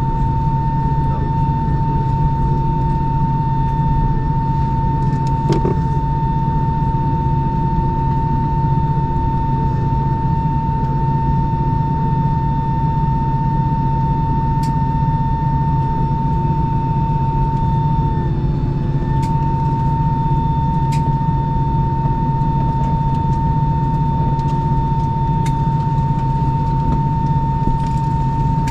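Inside the cabin of an Airbus A319 taxiing at idle: the jet engines and cabin air give a steady drone, with one clear high whine over a low hum. The whine dips briefly about two-thirds of the way through, and a few faint cabin ticks come through.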